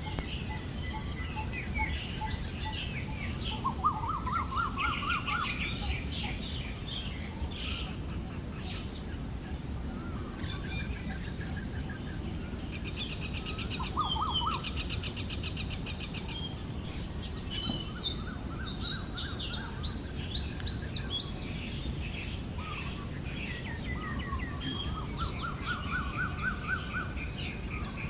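A forest bird chorus: many short chirps and calls, with several birds' trills repeating rapidly. Underneath is a steady high drone and a soft low wind rumble.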